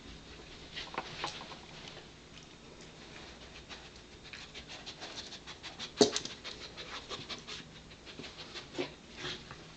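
Pembroke Welsh Corgi sniffing hard for a hidden treat, a run of quick short sniffs and breaths with her nose down on slippers and carpet. One sharp, louder sound about six seconds in.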